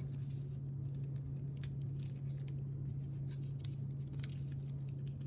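Origami paper being handled and folded: short crisp rustles and crinkles as the sheet is creased by hand, over a steady low hum.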